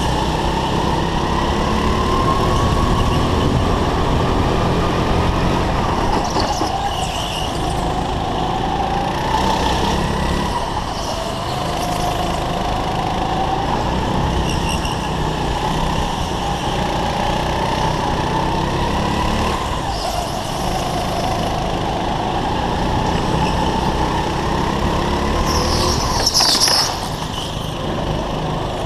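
Kart engine heard from onboard at racing speed, its pitch rising and falling with the throttle through the corners over a constant low rumble. A brief loud hissing scrape about 26 seconds in.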